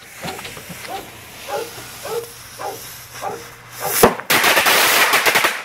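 Consumer firework ball filled with black powder and firecrackers: its fuse sputters while a dog barks repeatedly, then a sharp crack about four seconds in as it ignites, followed by a loud hissing gush of sparks that cuts off suddenly after more than a second.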